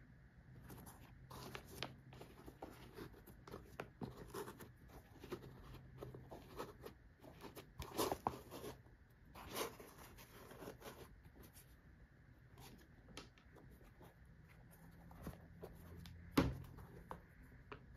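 Handling noise of a canvas-and-suede Nike SB Chron 2 skate shoe: soft irregular rustles and scrapes as hands turn it and run over the laces and upper, louder in the middle, with one sharper knock near the end.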